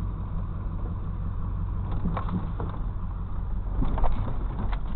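Pickup truck engine running at low road speed, heard from inside the cab as a steady low hum. A few knocks and rattles come through around two and four seconds in, the loudest about four seconds in, as the truck rolls over a potholed gravel road.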